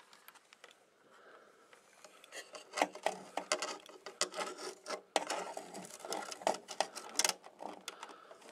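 Small screwdriver tapping and scraping against the wires and sheet-metal chassis of an opened Realistic SX-190 receiver in irregular clicks and rubs, faint at first and busier from about two seconds in.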